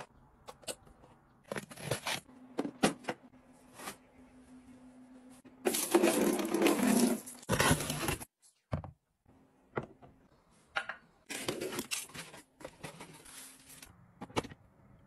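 Handling clicks and knocks of plastic gadgets, with a loud scraping, tearing run of about two and a half seconds in the middle as a blade slices along the packing tape on a cardboard box.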